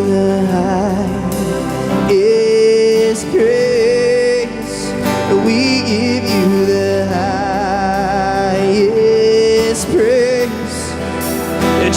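Live worship band music: sustained chords under a slow, held melody line, with no sung words.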